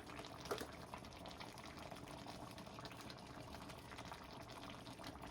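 Pot of fish and okra in coconut milk simmering: a faint, steady bubbling with many small pops. One light click about half a second in.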